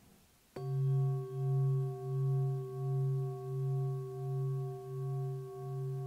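Singing bowl struck once about half a second in, then ringing on with several steady overtones. Its deepest tone wavers in a slow pulse, about one and a half beats a second, and slowly fades.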